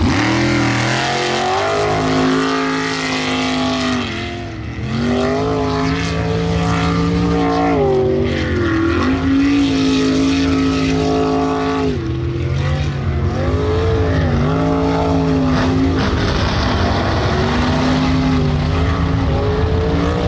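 Sprintec jet sprint boat's engine at high revs, its pitch dropping and climbing back several times as the throttle is lifted and reapplied through the turns of the course.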